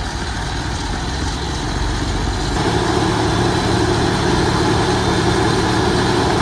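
Engine of a heavy machine running steadily, getting louder about two and a half seconds in.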